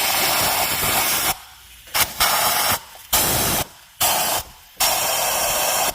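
Pressurised spray hissing in bursts into a corroded spark plug well: one long burst, then several short ones that start and stop abruptly.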